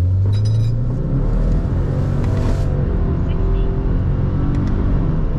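Subaru Forester tS STI's turbocharged 2.0-litre flat-four at full throttle in a 0-100 km/h run, heard from inside the cabin: the engine note climbs, drops at an upshift about two and a half seconds in, then climbs again. The shift skips a gear into fourth, which the driver puts down to his paddle shift landing together with the CVT's own shift.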